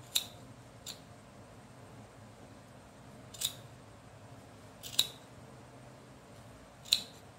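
Scissors snipping through a wool yarn pompom, trimming its sides to shape it round: five short, sharp snips spaced irregularly, a second or two apart.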